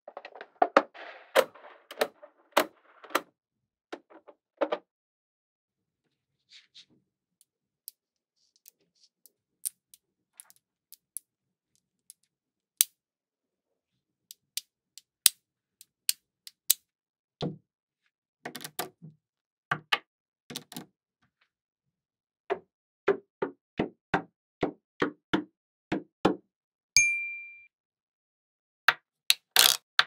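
Small magnetic balls clicking as they snap together and are pulled apart, in sharp single clicks and short clusters at irregular intervals. About 27 seconds in there is a single ringing ding.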